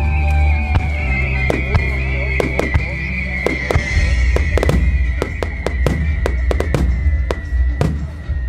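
Aerial fireworks shells bursting again and again, about two dozen sharp bangs and crackles at uneven intervals, with music underneath that holds a long high note which slowly falls in pitch.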